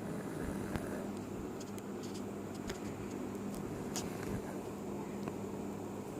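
Pug snoring in its sleep, a low steady snore with a few faint clicks over it.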